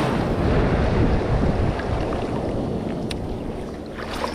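Breaking surf wave surging and splashing around a wader standing in the water: a loud rush of churning water that slowly fades, with wind buffeting the microphone.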